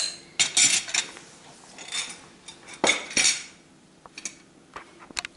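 Metal spoon scraping and clinking against a small glass bowl while stirring a thick spice paste, in several short scraping bursts over the first three seconds or so, followed by a few light knocks.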